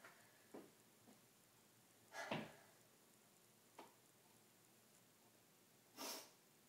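Near silence: room tone broken by a few faint, brief noises, the loudest about two seconds in and a hissy one near the end.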